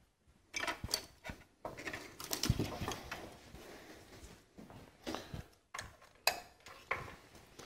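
Scattered light clicks, taps and rustles of a magnetic pickup tool being handled and fed down an engine's spark plug well to fish out a spark plug that stayed behind.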